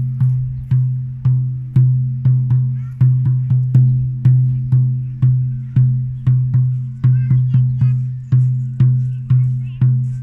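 Hand-held eagle frame drum struck with a beater in a steady, slightly uneven beat of about two to three strokes a second. Each stroke rings with a low tone that fades until the next.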